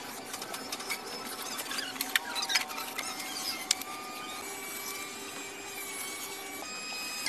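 Scraping of a block rubbed along the rim of a cement tank to smooth it, with a few sharp clicks.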